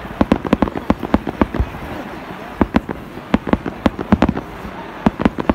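Fireworks display going off: a rapid, irregular string of sharp bangs and cracks, several a second, thinning out briefly about two seconds in before picking up again.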